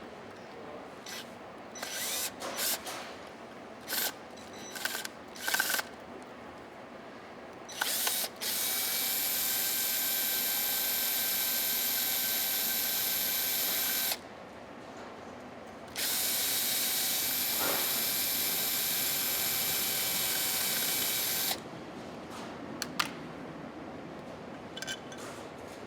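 Power drill running in two steady spells of about six seconds each, with a whine at several fixed pitches, backing out the screws of the box's gasketed cover. A few clicks and knocks of handling come before and after.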